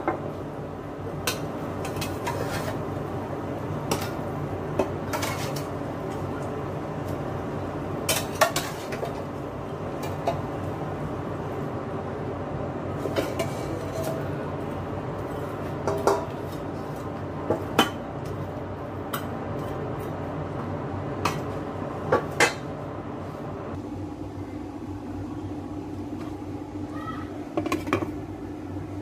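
Kitchenware clattering: a spatula scraping and knocking against a bowl as meat is tipped into a stainless steel pot, with scattered clinks of dishes and pot over a steady background hum. A glass pot lid clinks into place near the end.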